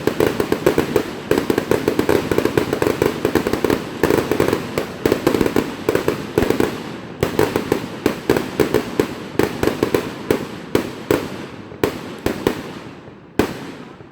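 Fireworks going off: a dense, rapid run of pops and crackles, many a second, that thins out over the second half and ends with a last sharp crack near the end.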